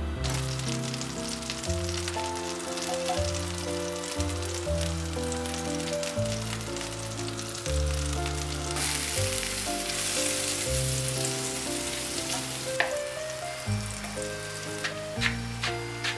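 Food sizzling and crackling in a hot frying pan, growing louder for a few seconds in the middle, with a few sharp clicks near the end. Soft background music plays underneath.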